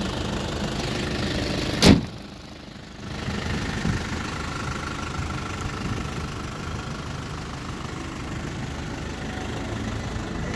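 Isuzu Bighorn's 2.8-litre 4JB1-T turbo-diesel idling steadily, with one loud thump about two seconds in.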